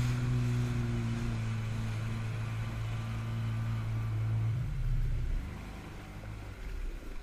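Jet ski engine running steadily at low speed, then easing off about five seconds in, its note dropping and the sound falling much quieter as the craft slows toward the shore.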